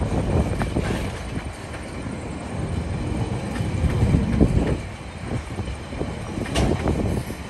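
TasRail container wagons of a freight train rolling past as the train pulls out: a steady rumble of steel wheels on the rails, broken by irregular clanks and knocks from the wagons.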